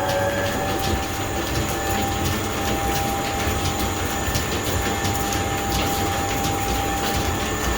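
Belt-driven line-shaft transmission and band saw running: a steady whine that settles right after spinning up, over a dense mechanical rumble with an even, rapid clicking.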